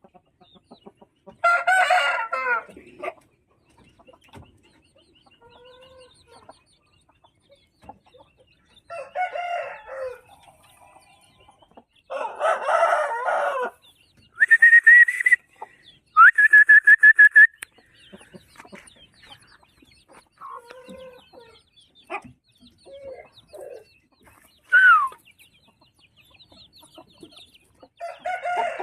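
Aseel chickens calling: a rooster crows several times, spaced through the stretch, with quieter clucking between the crows.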